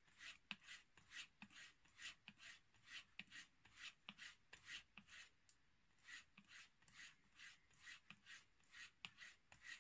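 Dovo straight razor being stropped on a bare leather strop: quick back-and-forth passes, each a faint swish with a light click as the blade turns over on its spine, about three a second, with a short pause a little past halfway.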